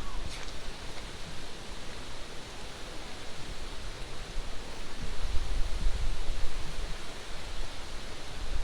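Beach ambience: a steady hiss of wind and surf, with wind buffeting the microphone in low rumbling gusts that grow stronger about five seconds in.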